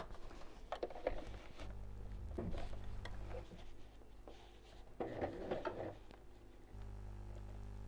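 Quilted fabric rustling with small clicks and knocks as the mat is shifted into place under a sewing machine's presser foot, with a denser rustle about five seconds in. A faint low hum comes and goes underneath.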